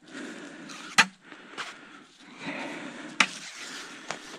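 Steel cable snare being handled and paid out over snow: rustling and crunching, with two sharp clicks about a second in and about three seconds in.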